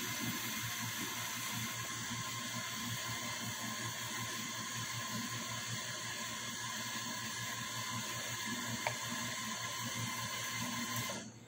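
A steady, even hiss that starts abruptly and cuts off abruptly near the end, with one faint tick about nine seconds in.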